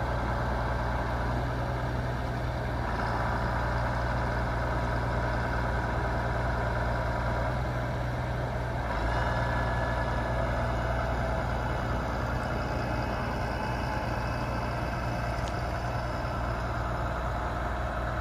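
2015 New Holland T6.175 tractor's diesel engine running steadily, a little louder from about nine seconds in.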